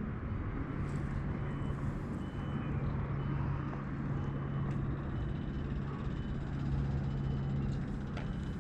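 A steady low engine-like hum over rumbling outdoor background noise, with faint short high chirps repeating about once a second.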